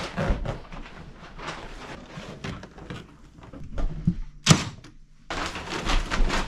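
Scattered knocks and thumps over a noisy background, the sharpest single knock about four and a half seconds in.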